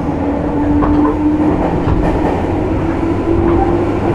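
Onboard running sound of a JR East 205-series electric train car, its MT61 traction motors under field-added excitation control giving a steady hum whose pitch rises slowly, over the rumble of the wheels on the rails.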